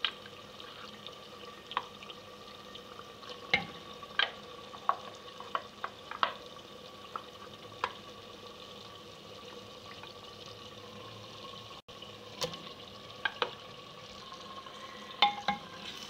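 Raw mutton pieces being added to hot oil and fried onion masala in a clay pot on low heat: a soft steady sizzle with about a dozen scattered sharp clacks as pieces and the spoon go in.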